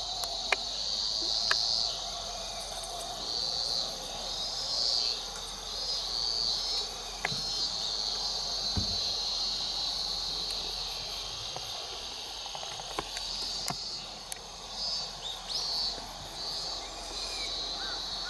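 Chorus of insects singing from the grassy lakeshore: a steady high-pitched drone with repeated swelling phrases. A few faint clicks and one low knock about nine seconds in.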